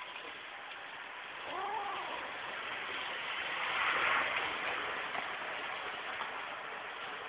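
A kitten gives one short meow, rising then falling, about one and a half seconds in, over a steady hiss that swells for a moment around four seconds in.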